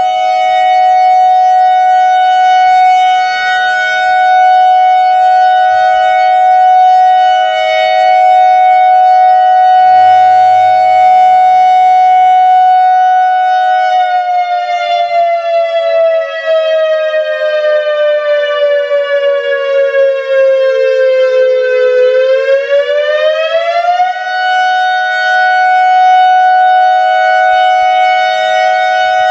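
ACA Alertronic AR-1600 electronic storm siren sounding a loud, steady two-note tone, part of a test cycle through all its tones. About halfway through, the pitch slides slowly down for several seconds, then quickly rises back to the steady tone.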